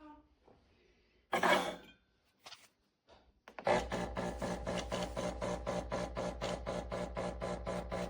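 Espresso machine's built-in burr grinder grinding coffee beans: a rasping grind with a fast, even pulse over a low hum, starting a few seconds in. Before it, about a second and a half in, comes a short loud rustle.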